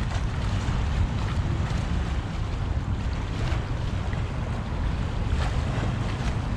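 Wind buffeting the microphone over small river waves lapping against a sandy, rocky shore.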